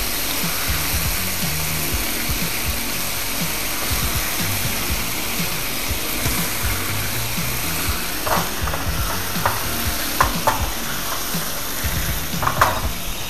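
Soy-and-mirin sauce sizzling and bubbling steadily around tofu blocks in a nonstick frying pan as it cooks down. A few light clicks come in the last third as the tofu is turned with silicone-tipped tongs.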